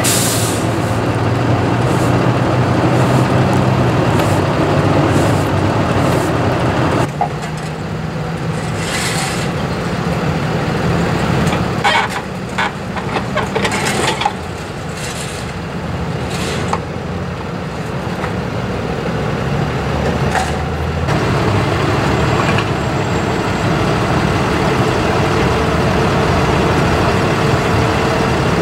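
Tow truck engines running steadily, with a few sharp metallic clanks and knocks about halfway through.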